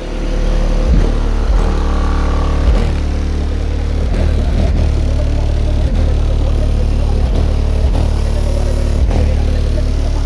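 Rap music played loud through a car audio system's subwoofers, a deep sustained bass line with a steady beat.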